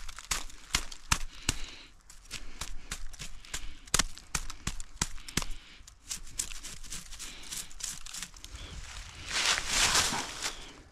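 Footsteps crunching and snapping through dry leaves and twigs in an irregular series of sharp crackles, with a louder rustle of brush near the end.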